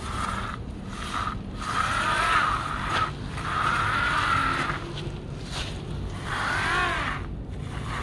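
Gritty scraping and crunching of sand as a small plastic toy bulldozer is pushed through it by hand, in three longer bursts, the second to fourth seconds the loudest.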